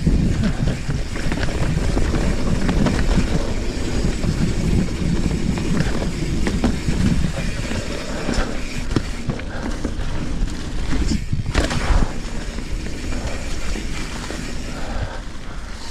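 Trek Fuel EX 7 full-suspension mountain bike ridden fast on a sandy, wet dirt trail: tyres rolling and crunching, the bike rattling and knocking over bumps, with a steady rumble of wind and ground noise on a GoPro. There is a brief, louder sharp sound a little past halfway.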